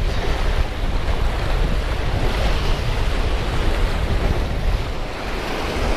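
Surf breaking and washing over jetty rocks, with wind buffeting the microphone in a steady low rumble.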